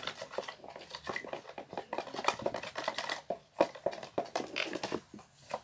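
A stirrer tapping and scraping in a container as glue and body scrub are mixed into slime that is starting to clump. It is a quick, irregular run of small clicks that thins out near the end.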